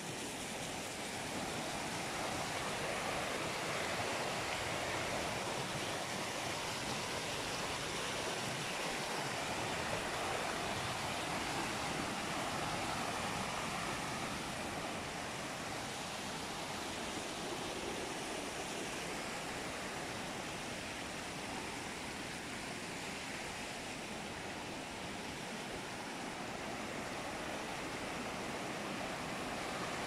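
Creek water rushing over rocks and small stepped cascades, a steady even rush.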